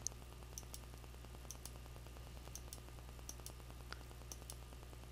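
Computer mouse clicking, faint: a short double tick of press and release about once a second as frames are stepped through, over a steady low electrical hum.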